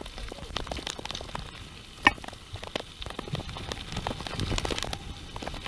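Mountain bike rolling fast down a rough forest trail: tyres crackling over dead leaves, twigs and stones, with irregular clicks and rattles from the bike and one sharper knock about two seconds in.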